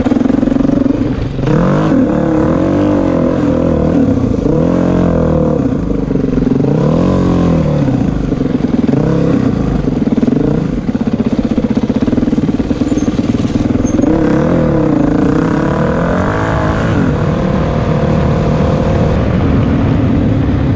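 Stock Honda CRF450X single-cylinder four-stroke dirt bike engine running under way on a bush trail, its revs rising and falling over and over as the throttle is worked.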